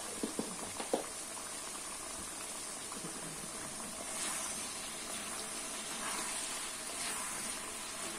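Pieces of duck cooking in their own juices in a kazan: a steady bubbling sizzle, with a wooden spatula stirring through the meat. There are a few light knocks in the first second.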